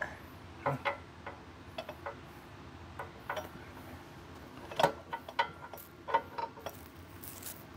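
Irregular small metallic clicks, clinks and knocks, some with a brief ring, as the motorcycle's rear wheel spacers and axle parts are worked into place by hand. The sharpest knocks come about five and six seconds in.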